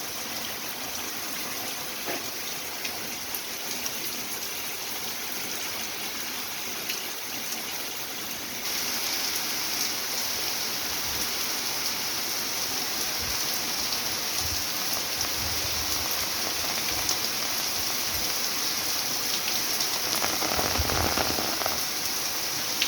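Heavy rain falling in a steady hiss, growing louder about a third of the way in.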